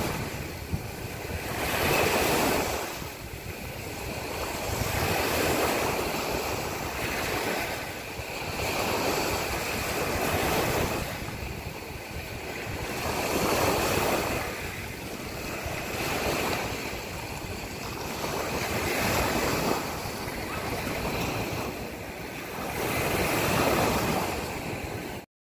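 Sea waves washing onto the shore, rising and falling in swells every three to five seconds, then cutting off suddenly near the end.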